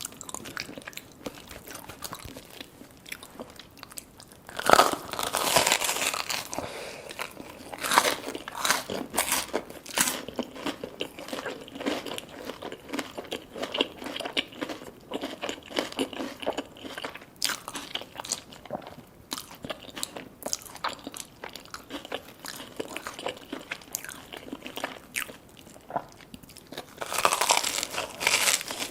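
Close-up eating sounds: crisp bites into battered, deep-fried food and steady wet chewing, with louder bursts of crunching about five seconds in and again near the end.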